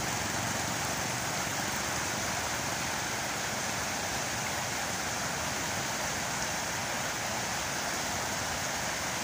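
Floodwater rushing steadily across a road, a constant even rushing noise.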